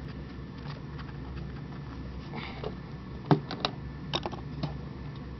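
A few sharp clicks and knocks of hands working on an evap line and its clips in a car's engine bay, bunched together after about three seconds, over a steady low hum.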